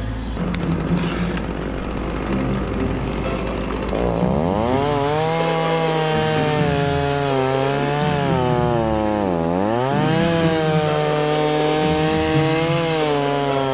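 Chainsaw revving up about four seconds in and running at high speed while bucking a felled conifer trunk, after a few seconds of lower, rougher machine noise. Its pitch dips sharply once, about nine seconds in, and then recovers.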